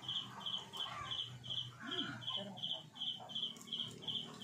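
A high chirp repeats steadily at one pitch, about three times a second. A brief lower call comes about two seconds in.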